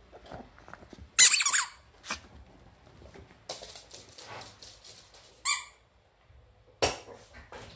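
A rubber squeaky toy ball squeaks as a small dog bites it: one loud squeak about a second in and a shorter one about five seconds in. A sharp knock follows near the end.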